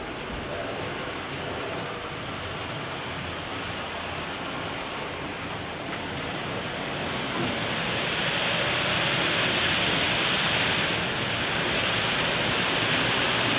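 Fleischmann H0 model trains running on the layout: a steady rushing hiss of wheels rolling on the metal track, growing louder about halfway through.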